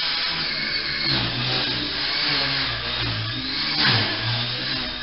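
Walkera Super CP micro RC helicopter flying on its stock main motor: a continuous high electric-motor whine that drifts up and down in pitch, with the rotor's buzz underneath.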